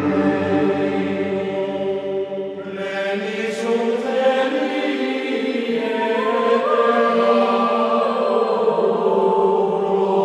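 Choral music: voices chanting in long held notes that change pitch now and then.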